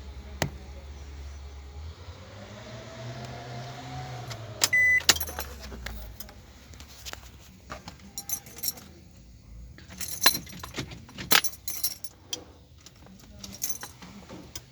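A low mechanical hum that rises and falls over the first few seconds, with a short beep about five seconds in. After that come a run of sharp metallic clinks and jingles, like keys or small metal tools being handled.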